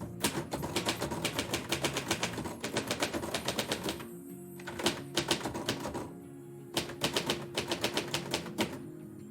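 Typewriter keys being struck in three quick runs of several clicks a second, with short pauses between, over soft instrumental background music.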